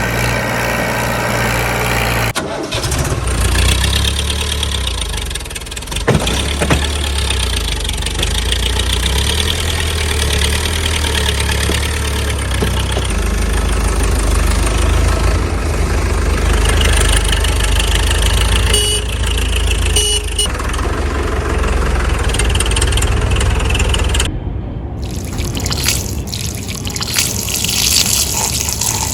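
A vehicle engine running steadily, with a brief break about 24 seconds in.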